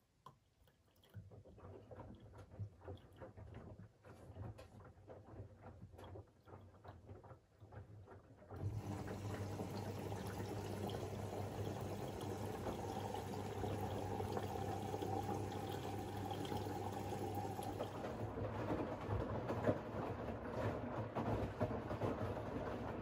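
Siemens iQ700 WG56B2090 washing machine with water rushing through it over a steady low hum. It is quieter and irregular at first, then about eight seconds in becomes suddenly louder and stays steady.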